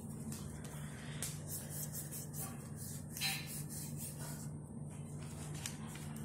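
Paper rustling and scraping as a hand moves the cut-out flaps and pages of a paper booklet, in short scratchy bursts with a louder one about three seconds in, over a steady low hum.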